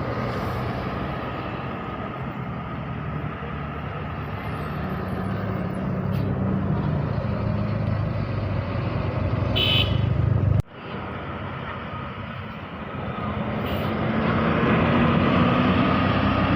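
Bus diesel engines running in traffic: a steady engine drone that builds, cuts off abruptly about ten seconds in, then an engine rising steadily in pitch as it speeds up.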